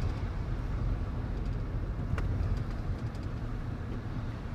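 Engine and road noise inside a moving pickup truck's cab: a steady low rumble, with a couple of faint clicks.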